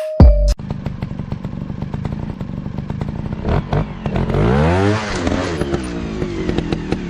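Dirt bike engine running with a steady, rapid firing beat. About four and a half seconds in its note rises and falls once.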